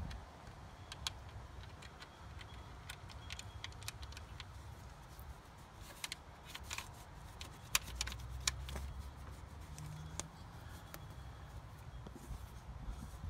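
Microfiber towel wiping and rubbing over a car's engine-bay panels, with scattered small clicks and taps of hand and cloth against plastic and metal, the sharpest about eight seconds in, over a steady low rumble.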